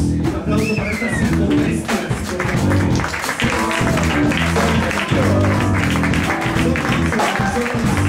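Live band playing a groove: a prominent electric bass line with electric guitars and drums.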